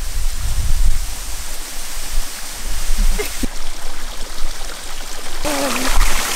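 Spring water gushing from a pipe spout into a shallow pool and running off as a small stream: a steady splashing rush of water.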